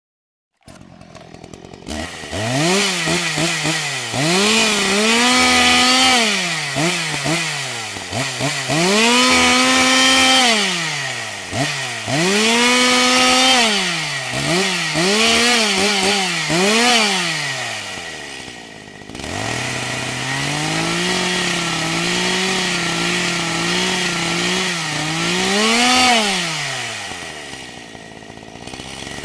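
Two-stroke chainsaw engine revved again and again: the pitch rises, holds high for a second or two, then falls back, with a run of quick short blips in the middle and a longer stretch at high speed that wavers. Near the end it drops back to idle.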